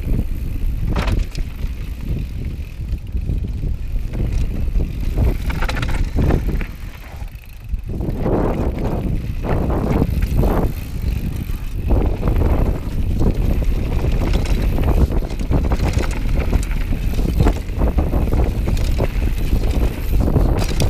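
Downhill mountain bike ridden fast over a loose gravel trail: tyres rumbling over stones, with many quick rattles and knocks from the bike over rough ground, and a brief quieter moment about seven seconds in.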